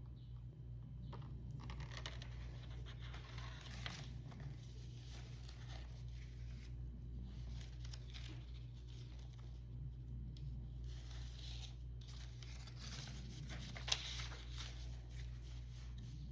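Paper rustling and crinkling as notebook pages are handled and turned, with a sharp click about 14 seconds in, over a steady low electrical hum.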